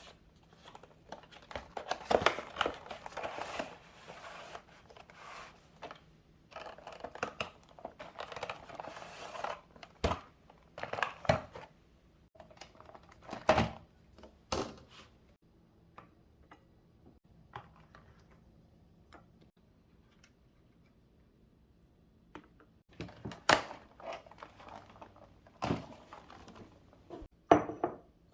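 Close-up handling of packaged items: plastic or paper packaging rustling and crinkling in spells, with scattered knocks and taps as things are set down on a hard surface. It is quieter for several seconds in the middle.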